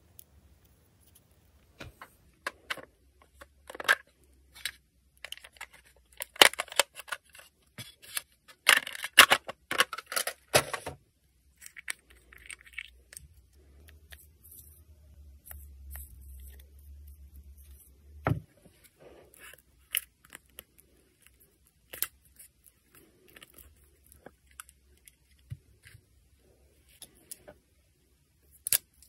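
Nail-art tools and materials being handled at close range: scattered clicks, taps and scrapes, with a dense run of scraping and crackling about six to eleven seconds in. A low hum runs for a few seconds in the middle and stops with a knock.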